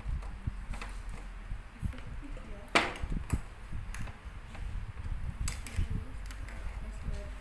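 Kitchen utensils and containers knocking and clicking as they are handled, with one sharp clatter about three seconds in, over a low rumble.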